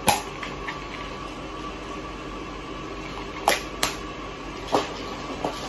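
A few sharp clicks of small medicine packaging being handled. One comes at the start, a close pair about three and a half seconds in, and another a second later, over a steady ventilation hum.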